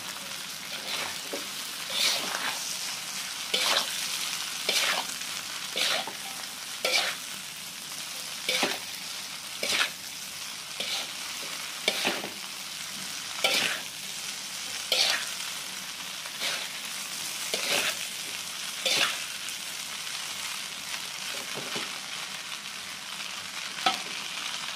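Rice vermicelli stir-frying in oil in a metal wok: a steady sizzle, with a metal spatula scraping and knocking against the pan about once a second as the noodles are tossed, the strokes thinning out near the end.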